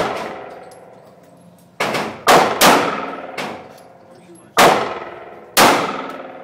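9mm semi-automatic pistol fired several times, the shots irregularly spaced from about half a second to two seconds apart. Each shot is followed by a long echoing decay in the indoor range.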